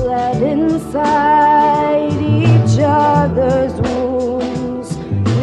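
Music: a woman's voice singing over acoustic guitar and a bass line.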